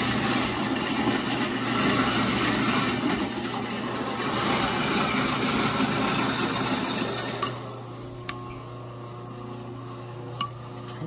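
A loud, steady rushing noise with a low hum stops suddenly about seven and a half seconds in. After it, a metal spoon clicks twice against a ceramic bowl.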